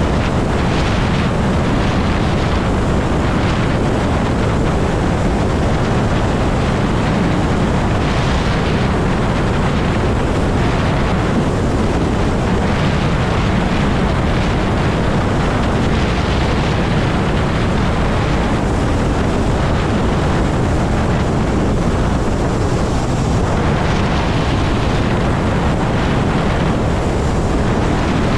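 Steady wind rush buffeting the microphone of a rider on a Zero electric motorcycle at highway speed; the quiet electric drive adds no engine note, so the wind dominates.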